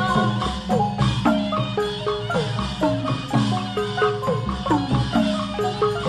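Traditional Burmese music with struck tuned percussion playing a quick, steady run of ringing notes, several of them sliding down in pitch.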